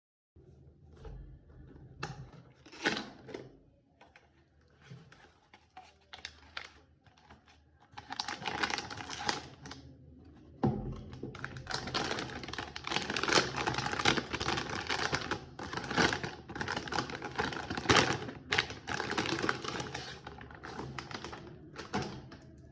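Packaging being handled during an unboxing: a rapid run of clicks, taps and rustles, sparse at first and nearly continuous through the second half, with a sharp knock about eleven seconds in.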